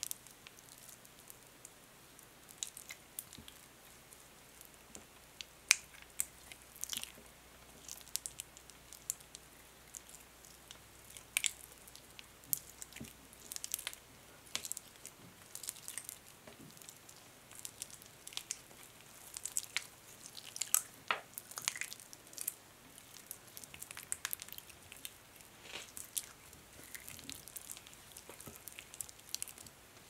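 Hand lotion squishing between hands as they are rubbed, squeezed and interlaced: irregular wet, sticky clicks and crackles.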